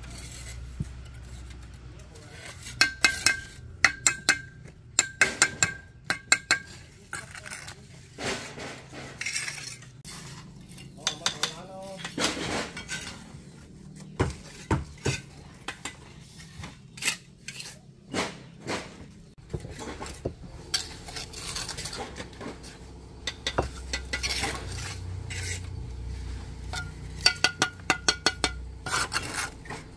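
Utensils clinking and knocking against pots and bowls, with runs of quick sharp clinks that ring briefly, twice in clusters, and scattered knocks in between.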